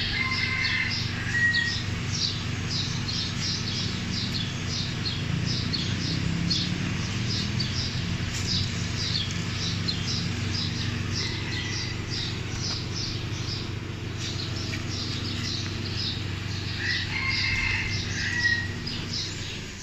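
Many small birds chirping rapidly and continuously, several short high chirps a second, over a steady low hum.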